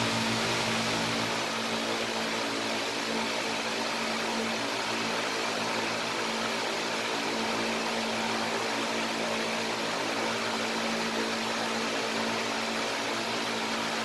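A steady mechanical hum with an even hiss of moving air, like an electric fan or air-handling unit running; one low tone holds level with no change in speed.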